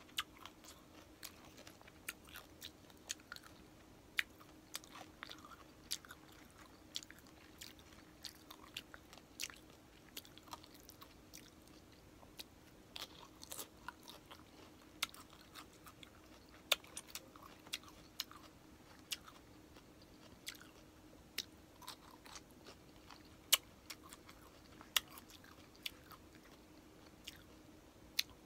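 Close-up chewing and biting of crispy pata, deep-fried pork leg with crackling skin: an irregular run of sharp crunches and mouth sounds, several a second.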